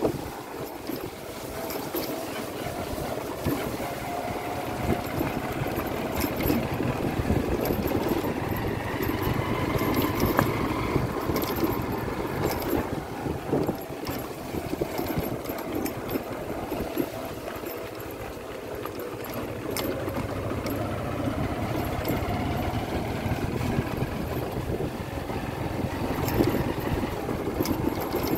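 Motorbike engine running at low speed over a rough dirt track, its pitch rising and falling gently, with rattles and clicks from the bumps.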